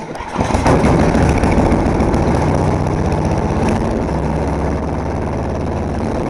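John Deere snowblower engine pull-started cold, catching on the first pull and running steadily. It eases slightly about four seconds in.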